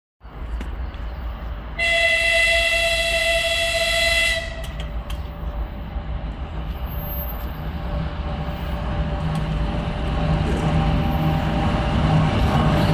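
Train horn sounding one long blast of about two and a half seconds, a single high tone, over the low rumble of a train that grows steadily louder toward the end.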